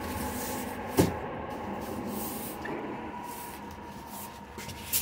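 A white foam box being pulled out from behind furniture and handled: one sharp knock about a second in, then a steady hiss with faint rubbing and scraping, and a small click near the end.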